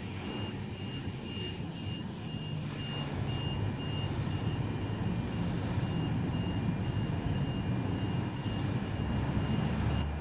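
S set double-deck electric train pulling away from the platform and rumbling off down the line. A high, regular beeping repeats about twice a second through most of the first two-thirds.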